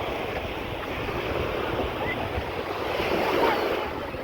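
Sea waves washing onto a beach, with wind on the microphone; the surf swells near the end.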